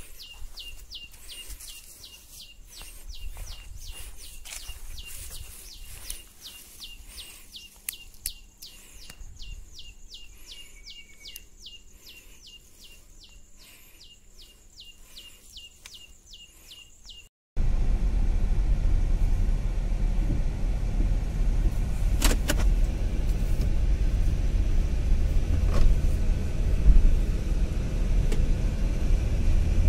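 Rhythmic high chirping, about three chirps a second, over faint outdoor quiet; about two-thirds of the way through it cuts off sharply and a loud, steady low rumbling noise takes over.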